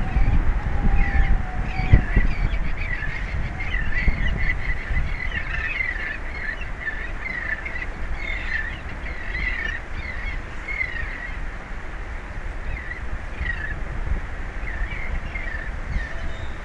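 Seabirds calling, a rapid stream of short, high calls that thin out after about ten seconds, over a steady low rumble.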